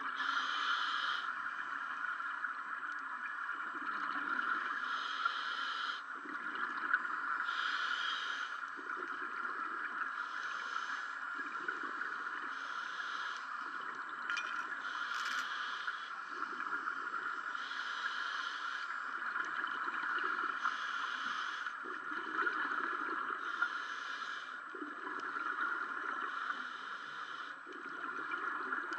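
A scuba diver breathing through a regulator underwater: a higher hiss and a lower bubbling rumble take turns every few seconds as the diver breathes in and out, over a steady hiss.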